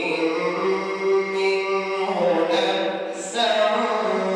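A man's solo voice reciting the Quran in melodic tajweed style, unaccompanied and drawing out long held notes, with a brief pause about three seconds in.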